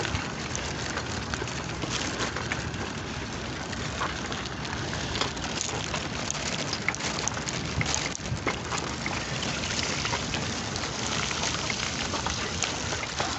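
Steady rushing noise with scattered crackles and ticks: wind and handling noise on a handheld camera's microphone as it is carried along a dirt road.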